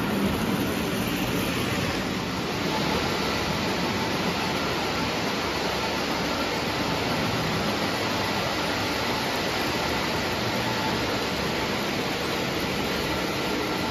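Lionel O-gauge model trains running on tubular three-rail track: a steady rumble of wheels and motors, with a faint steady whine.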